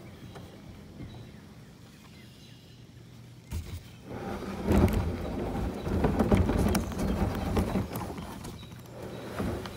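Kayak paddling: after a quiet stretch, an irregular run of knocks and splashing starts about four seconds in and carries on for several seconds.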